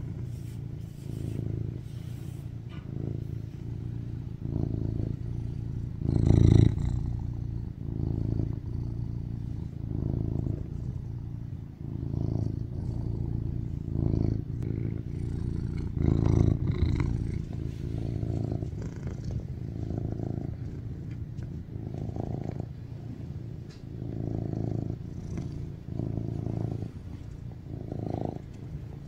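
Tuxedo cat purring right at the microphone: a steady low purr that swells and fades with each breath, about every two seconds. Two brief louder bursts come about six and sixteen seconds in.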